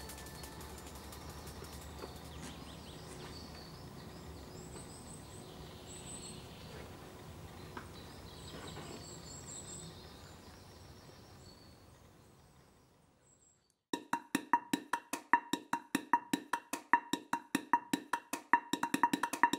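Faint outdoor ambience with a few short, high bird chirps, fading out to near silence. About two-thirds of the way in, a music track starts with a fast, clicking beat of about five clicks a second.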